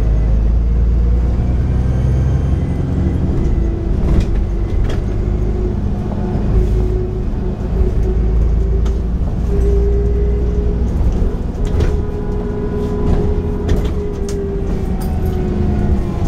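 Cummins diesel engine of an Alexander Dennis Enviro 400 double-decker bus running under way with a heavy low rumble and a steady turbo whistle held for most of the stretch. Short rattles and knocks sound now and then.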